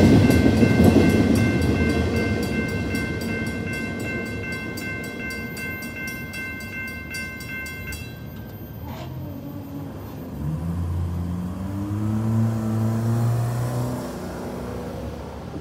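The end of a freight train rolls through the crossing, its wheel noise loud at first and fading. The crossing's mechanical bell (M-Bell) rings rapidly and stops about eight seconds in. Low motor tones follow as the gate mechanisms lift the arms.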